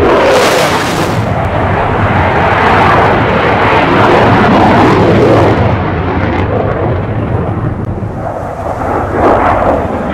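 F-16 fighter jet flying a display pass overhead: loud jet-engine noise with a sharp high-pitched hiss about half a second in. The hiss dies away around six seconds in, and the noise swells again near the end.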